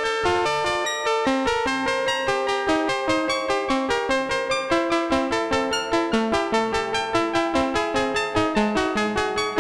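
Eurorack modular synthesizer playing a quick, steady run of short pitched notes that keep changing in pitch, an electronic sequencer-style pattern.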